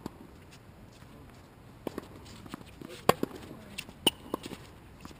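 A few sharp knocks of tennis play on a hard court, the loudest about three seconds in.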